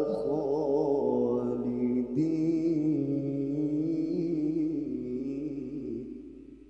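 A man's voice reciting the Qur'an through a microphone in melodic tilawah style, drawing out the end of 'fadkhuluha' in one long ornamented phrase with wavering pitch. It fades away about six seconds in.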